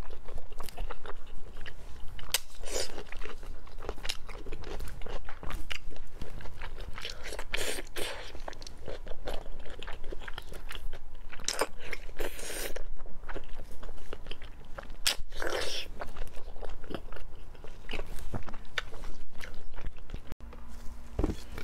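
Close-miked eating sounds: biting into and chewing a strip of chili-dusted pork belly, in irregular bites and chews.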